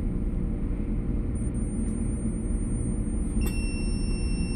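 Steady low machinery hum. About three and a half seconds in, a click and then a steady high-pitched beep from a UNI-T insulation resistance tester as its test voltage is applied to a hot plate terminal.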